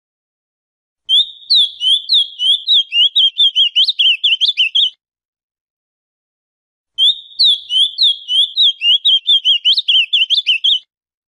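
Male ultramarine grosbeak (azulão) singing two song phrases of about four seconds each, a few seconds apart. Each opens with a short held note and breaks into a fast run of rising and falling notes.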